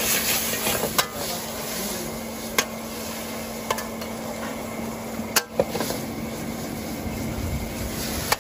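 Food sizzling in a wok over an open-flame stove as it is stir-fried, the metal ladle scraping the pan and knocking sharply against it four times.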